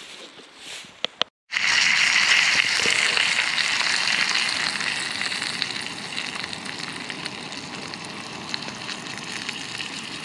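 Two brook trout sizzling in hot oil in a small pan on a camp stove. The sizzle starts suddenly about a second and a half in, loudest at first, then slowly settles.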